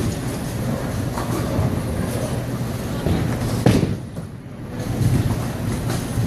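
Steady rumble of a bowling alley; a bowling ball thuds onto the lane a little over halfway through and rolls away with a low rumble.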